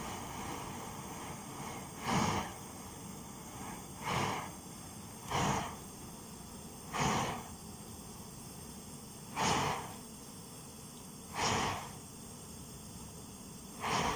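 Swiss military two-burner petrol field stove burning with a steady hissing roar, broken seven times by short, louder whooshing puffs about every two seconds.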